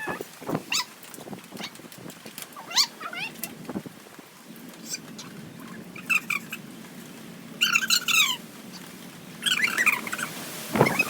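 Several short animal calls with rising and falling pitch, the longest a falling call about eight seconds in, among scattered light clicks and knocks.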